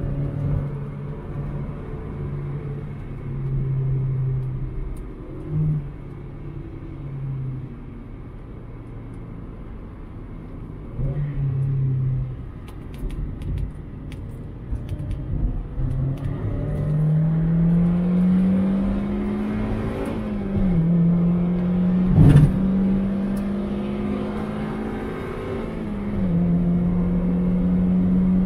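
2001 Mazda MX-5 1.8's four-cylinder engine being driven on track: revs held and eased off in the first half, then climbing through a gear with a quick drop at an upshift about twenty seconds in, and climbing again. A single sharp knock sounds about twenty-two seconds in.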